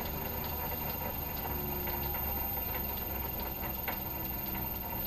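Myford Super 7B lathe running slowly in back gear, driven by a three-phase motor on an inverter (VFD) being turned down to about 10 hertz: a steady low hum with faint, irregular ticking from the drive.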